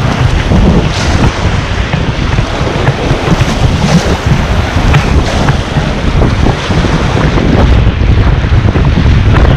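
Heavy wind buffeting on the microphone over rushing whitewater, with scattered splashes of water against a raft.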